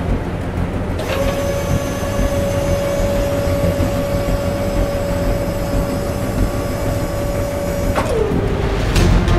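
Heavy truck engine sound effect: a low rumble throughout, with a steady high whine that comes in about a second in and drops in pitch near the end as the engine winds down.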